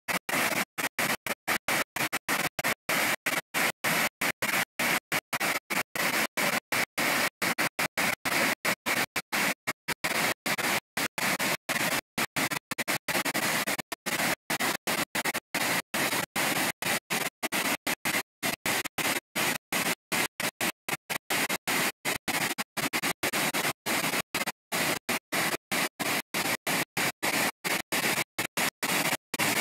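Waterfall rushing over rock ledges, a loud, even hiss of falling water. The sound keeps cutting out for an instant about four times a second, which makes it stutter.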